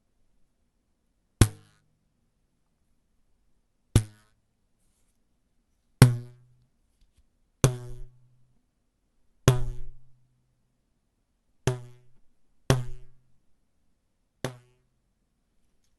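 Cartoon-style boing effect played as eight separate takes: each is a sudden sharp twang with a short low ring that dies away. A few of the rings last longer and wobble.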